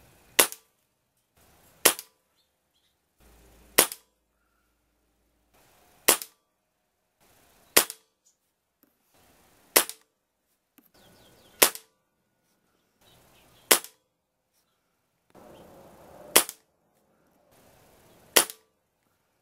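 Benjamin Marauder .177 pre-charged pneumatic air rifle firing ten single shots, one about every two seconds, each a sharp crack followed by a short tail.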